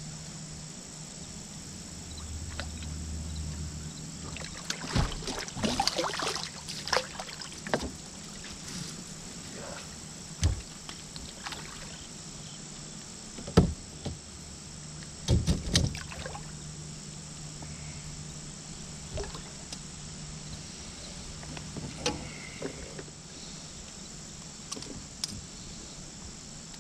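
Irregular knocks and clatters of things being handled, over a steady low hum. The loudest knock comes about halfway through, with clusters of smaller ones before and after it.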